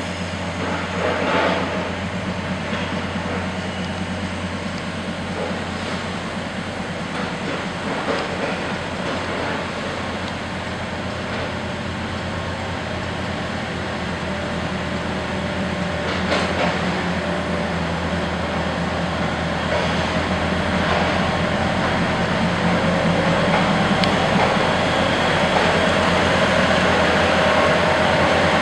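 Taiwan Railway DR3100 diesel multiple unit departing: its diesel engines run steadily as the train pulls away, and the sound grows louder in the second half as the cars begin to roll past.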